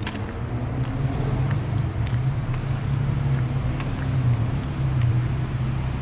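Downtown street ambience: a steady low rumble of traffic with wind on the microphone, and faint footsteps on wet pavement.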